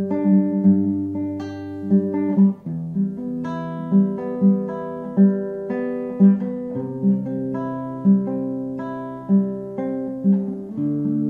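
Slow, calm instrumental music on acoustic guitar: notes plucked one after another about every second over held bass notes, the chord changing every few seconds.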